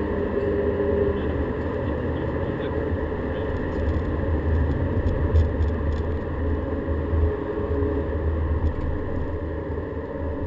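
Volkswagen Golf GTI driven at speed, heard from inside the cabin: a steady deep rumble of engine, tyres and road. The engine's pitched note fades about a second in, leaving mostly rumble.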